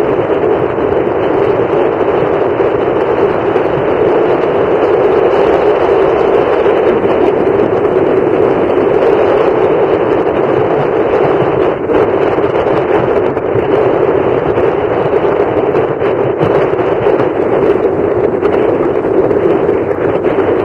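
Wind blowing steadily across the camera microphone: a loud, even rushing noise with no break.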